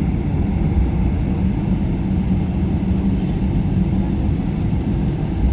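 Steady low rumble of a Boeing 777-300ER's GE90 engines and airflow, heard from inside the economy cabin.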